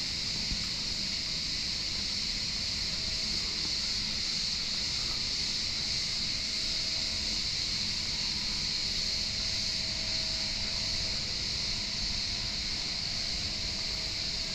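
Steady high-pitched hiss over a faint low rumble, even throughout with no distinct events.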